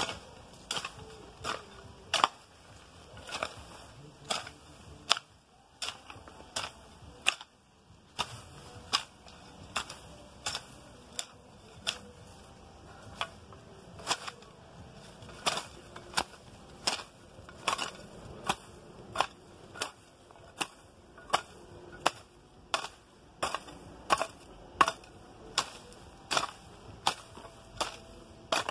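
Long-handled hoe chopping into the soil and weeds, sharp strikes about one a second with a short pause about six seconds in, as weeds are cleared by hand.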